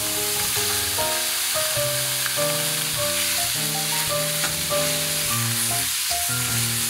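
Sliced pork and onion searing in hot vegetable oil in a stainless steel skillet on high heat, sizzling steadily as it is stirred with a wooden spatula. Background music with a melody plays throughout.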